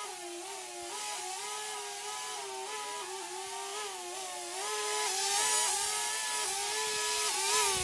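Hubsan H107C+ mini quadcopter's motors and propellers whining in flight, the pitch wavering up and down as the throttle changes while it manoeuvres. It gets louder, with more hiss, from about five seconds in.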